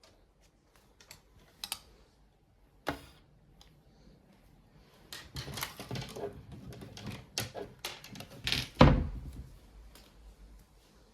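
Clicks, taps and knocks of things being handled, busiest in the second half, with a louder thump about nine seconds in.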